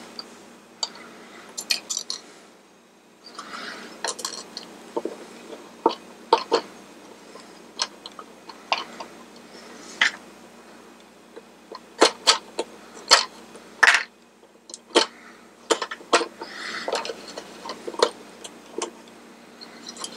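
Small plastic and metal parts of a Mr. Christmas merry-go-round's turntable drive being fitted together by hand: irregular light clicks and clinks with soft rustling between them, coming thickest just past the middle.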